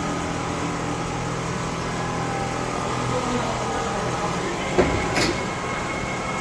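Richpeace single-needle quilting machine running with a steady mechanical hum, with a couple of sharp clicks about five seconds in.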